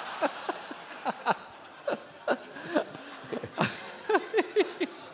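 Live audience laughing, with scattered chuckles over a general murmur of laughter and a fresh wave of it about four seconds in.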